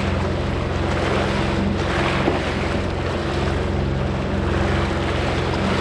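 Jet ski engine running steadily at trolling speed, its low hum unchanging, with wind buffeting the microphone and sea water rushing.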